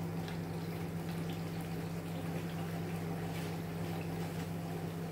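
Tomato and pepper sauce simmering in a pot, bubbling and sputtering faintly over a steady low hum.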